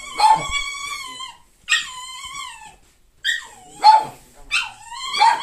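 A dog whining in a series of about five high, drawn-out whines, several sliding down in pitch, with short gaps between them.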